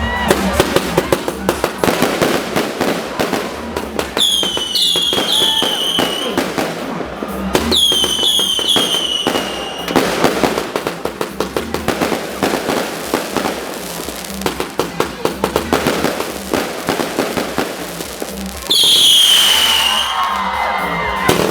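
Fireworks going off in rapid crackling and popping volleys, with whistling tones that fall in pitch three times.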